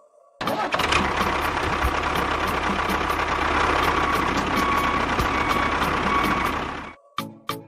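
A motor running steadily, a dense rattling noise with a faint whine on top. It starts about half a second in and cuts off suddenly near the end.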